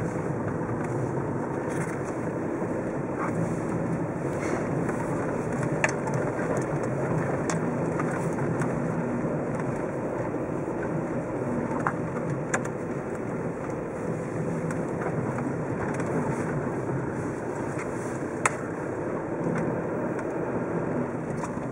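Car driving slowly over packed snow, heard from inside the cabin: a steady rumble of engine and tyres, with a few sharp clicks and knocks along the way.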